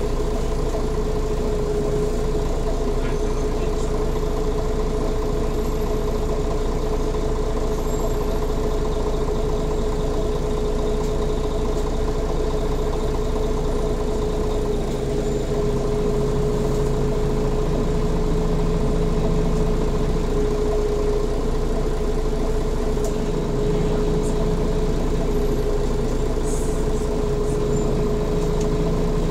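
Mercedes-Benz Citaro G articulated city bus running, heard from inside the passenger cabin: a steady low drone with a constant tone over it.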